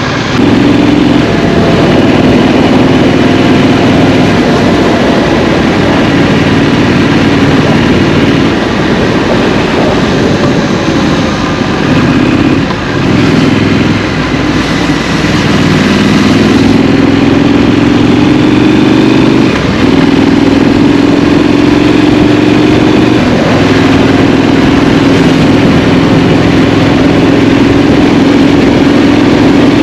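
Scrambler motorcycle's twin-cylinder engine under way in city traffic, heard from the rider's seat. It eases off and slows about halfway through, then pulls up again in rising sweeps of engine pitch before settling into steady cruising.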